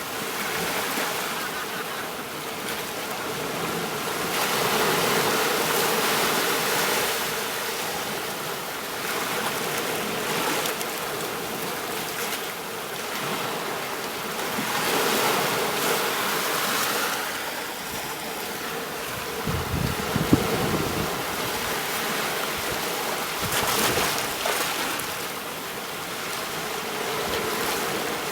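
Surf washing onto a beach, the wash swelling and fading every few seconds. About two-thirds of the way through there is a brief low rumble, the loudest moment.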